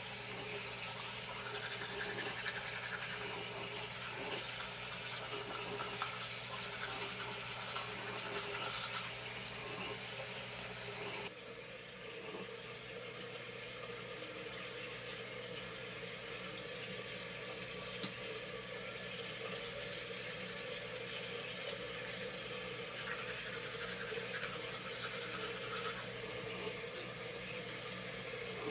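Bathroom sink faucet left running into the basin, a steady rush of water. About eleven seconds in, the sound abruptly changes, becoming a little quieter, and then slowly builds back.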